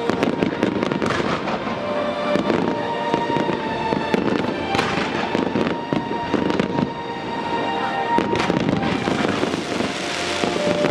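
Fireworks display: repeated bangs of shells going off, with a crackling hiss near the end, over music with steady held notes.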